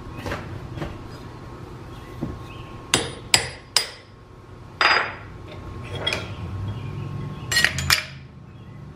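Steel tooling being handled and knocked against a metal lathe: a string of sharp metallic clanks and clinks with brief ringing, about eight in all, three close together near the end, over a faint steady low hum.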